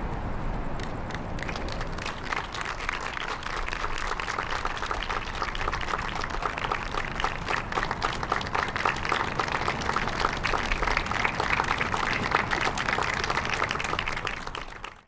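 Audience applauding, the clapping swelling over the first couple of seconds and then holding steady before fading out at the very end.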